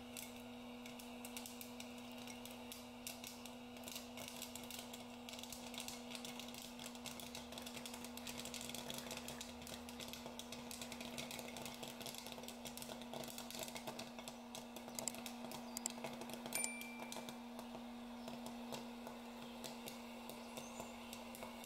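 Hot-air popcorn popper running with a steady motor hum, while kernels pop and popped corn lands in a bowl as a rapid, irregular stream of light clicks that gets busier partway through.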